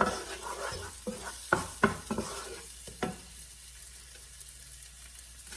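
Chopped onion sizzling in hot oil in a pan while it is stirred, the spoon knocking and scraping against the pan several times in the first three seconds. After that the sizzle goes on steadily and more quietly.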